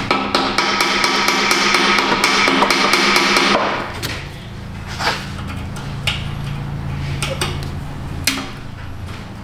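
Hammer striking the rusted studs of an exhaust Y-pipe flange to knock them through. A fast run of ringing metal-on-metal blows lasts about three and a half seconds, followed by a few single blows.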